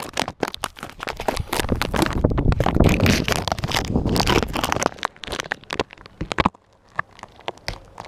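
Close-up handling noise of a GoPro being fixed against a tree branch: dense rubbing, scraping and knocking on the camera for about five seconds, then scattered clicks.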